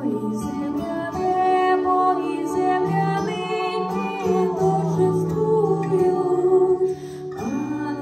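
Church choir singing a Ukrainian Christmas carol (koliadka) in several parts, the voices holding long notes together.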